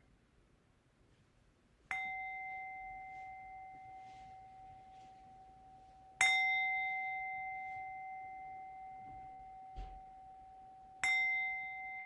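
A singing bowl struck three times, about four seconds apart, each strike ringing on with a steady pitched tone that slowly fades. It marks the start of a meditation sitting.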